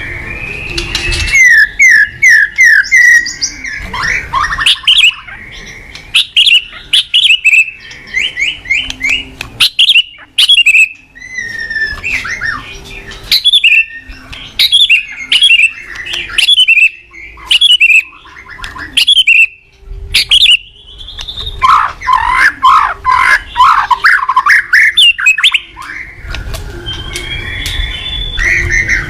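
White-rumped shama (murai batu) in full song: a long, varied run of loud, rapid phrases of whistles, trills and harsh chattering notes, with sharp clicking notes throughout. It sings continuously, with only brief gaps between phrases.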